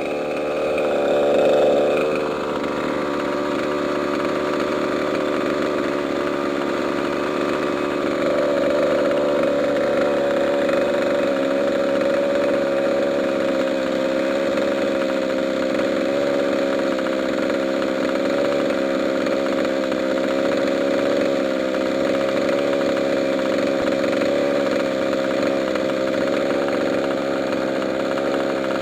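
Small two-stroke gas engine of a 1/5-scale RC truck running steadily at idle, with a brief rev about a second in.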